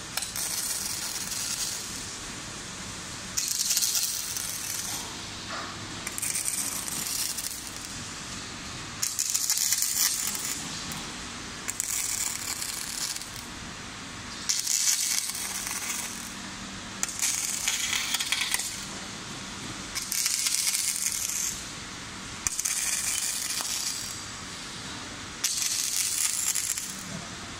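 Robot arm's arc-welding torch crackling in bursts as it lays a series of short welds on steel scaffolding planks. There are about ten bursts of about a second each, one every two to three seconds, with quieter pauses while the torch moves to the next spot.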